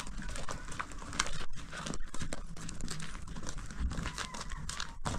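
Footsteps on dirt and gravel with cloth rustling as several people walk, an irregular run of crunches and small clicks.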